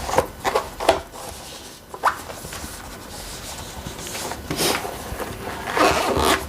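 A handheld gaming PC with its keyboard attached being pushed into its fitted carrying case: rubbing, rustling and scraping of the case against the device, in several uneven bursts, with a louder stretch near the end as it goes fully in.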